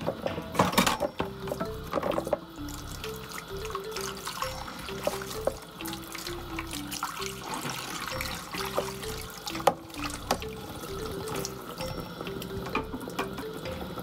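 Kitchen tap running into a sink during hand dishwashing, with a few knocks of dishware against the sink.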